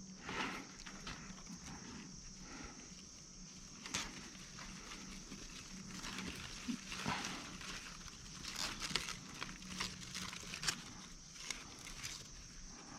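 Faint rustling and snapping of grapevine leaves and stems as grape bunches are handled and pulled off the vine, with scattered light clicks.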